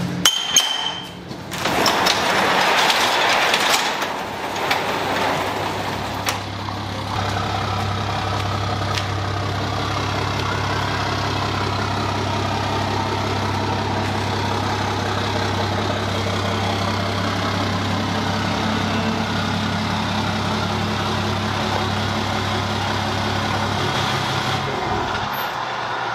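A sectional garage door rattling as it is raised by hand, then a Ram pickup truck's engine running steadily as the truck backs up to the door, shut off about a second or two before the end.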